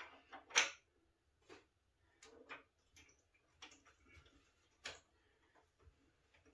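Irregular small clicks and taps of a collectible figure's parts being handled and fitted together, the loudest about half a second in.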